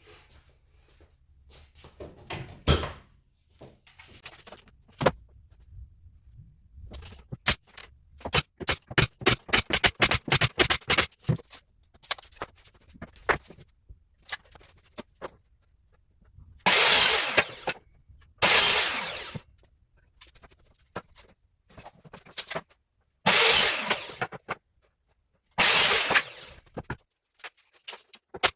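Hammer driving nails into wood: scattered single strikes, then a quick run of blows a few seconds in. Later come four separate bursts of harsh noise, each about a second long, louder than the hammering.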